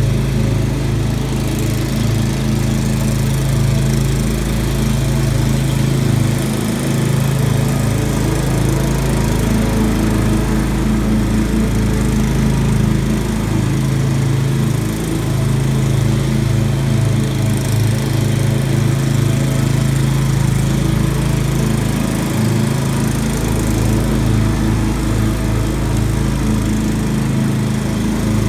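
Walk-behind gas lawn mower's small engine running steadily while being pushed through grass.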